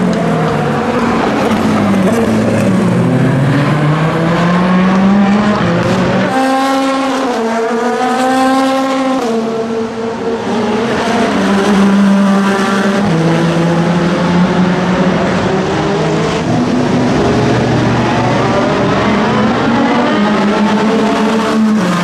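Peugeot 9X8 hypercar's twin-turbo V6 at racing speed, its engine note gliding up and down and stepping sharply several times as it shifts gear.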